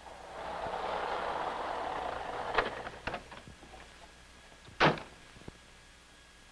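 An old car drives up and stops, its sound swelling and then fading over the first couple of seconds. A click follows, then about five seconds in a single loud slam, like the car's door being shut.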